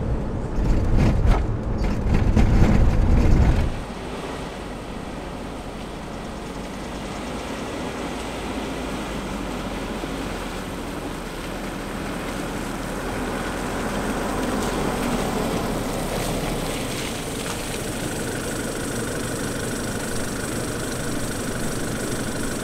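Camper van driving: steady engine and road noise, heavier and louder in the low range for the first three or four seconds, then settling into an even drone.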